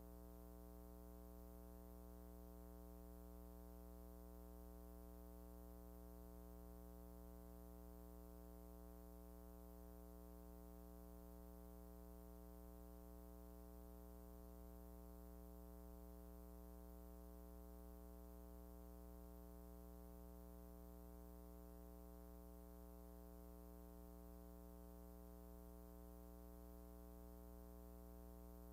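Near silence: only a faint, steady hum.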